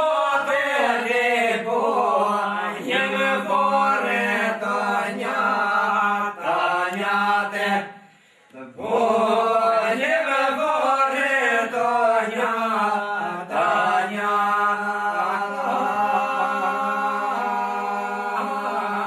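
A group of men singing a northern Albanian two-part polyphonic song: a lead voice winds through the melody over a steady held drone from the others. The singing breaks off briefly about eight seconds in, then starts again.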